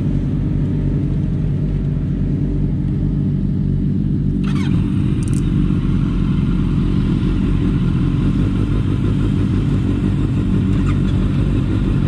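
Sport motorcycle engines idling steadily, with a brief click about four and a half seconds in.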